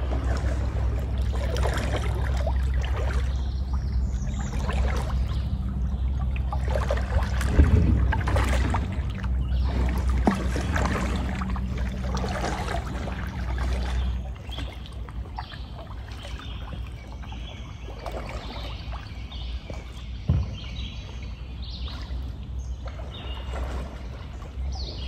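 Kayak paddle strokes splashing, with water trickling off the blades, over a steady low hum that fades about halfway through. One sharper knock comes near the end.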